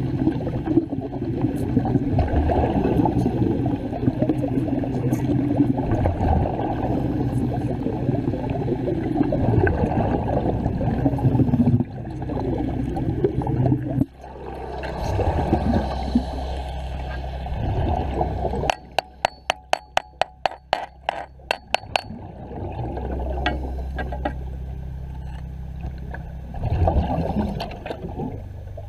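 Underwater bubbling and gurgling around a diving welder, a dense rushing noise. About two-thirds of the way through it thins out for a few seconds into a run of about a dozen sharp clicks, then the bubbling returns.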